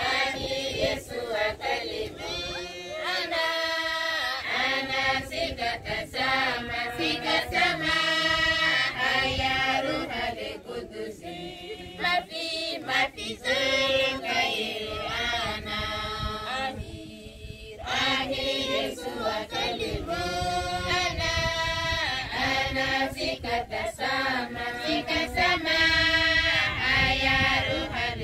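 A congregation of women and men singing a hymn together, in long phrases with short breaks between them.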